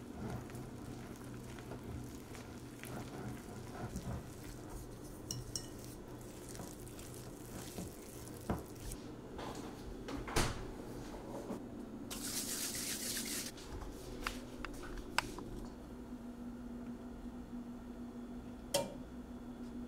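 Metal whisk and utensils stirring brownie batter in a glass mixing bowl, with scraping and sharp clinks against the glass. Near the end, a single click as the stove's oven temperature dial is turned.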